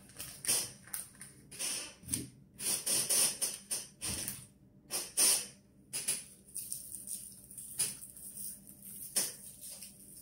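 Cut vegetable pieces rustling and tapping on parchment paper in a baking tray as they are spread out by hand. From about halfway through, a spice shaker is shaken over them in a quick run of small dry rattles.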